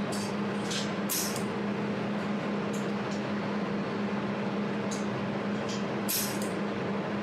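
Fiber-laser jewelry welding machine running with a steady hum, broken by short sharp hissing bursts at irregular intervals of about a second, as the laser fires welding pulses.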